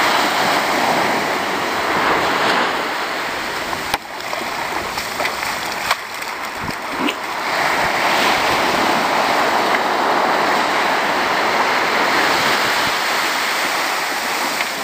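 Small ocean waves breaking and washing up a sandy beach: a steady rush of surf that swells louder about halfway through.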